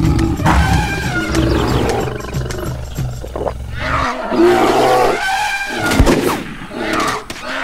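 Cartoon animal calls and roars: several pitched cries that bend up and down over a low rumble that stops about four seconds in, with a single gunshot about six seconds in.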